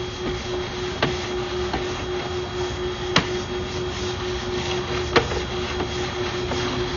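Sewer inspection push-camera rig being fed down a 4-inch cast iron sewer line: a steady electrical hum with scattered sharp clicks and knocks, the loudest about three and five seconds in.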